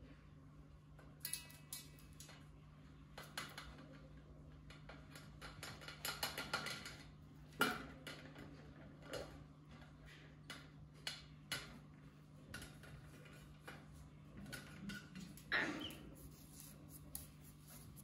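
Irregular light clicks and taps of a cockatoo's beak nibbling at a brass coffee pot on a metal tray, a few louder knocks among them, over a steady low hum.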